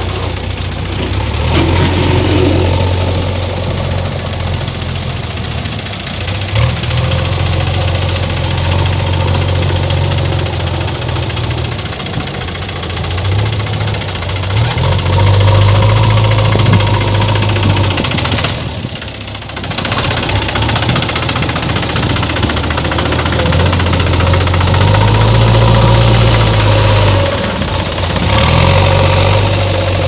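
Diesel engines of a JCB backhoe loader and a Mahindra tractor running close by. The loader works its bucket and the engine note swells louder twice, about halfway through and again near the end.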